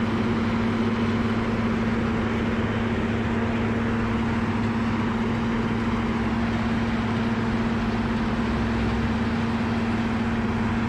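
Wood-chip grinder running steadily under load, a constant engine drone with a strong steady hum. Its discharge conveyor is dropping reground chips onto the pile.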